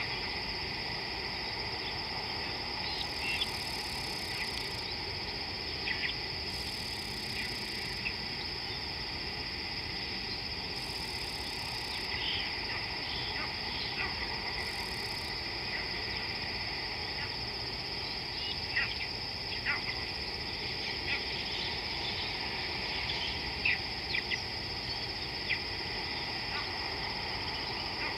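Open-air wildlife ambience: a steady high insect drone over a soft hiss. Short, sharp bird calls are scattered throughout, a handful standing out above the rest.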